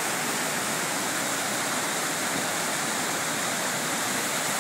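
Whitewater of a river pouring over rock ledges in several short drops, a steady, unbroken rush of water.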